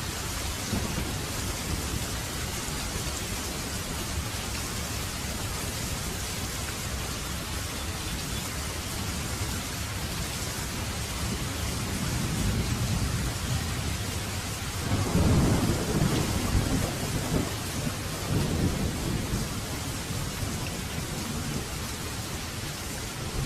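Steady rain falling, with a roll of thunder rumbling in about halfway through, loudest a few seconds later and then dying away.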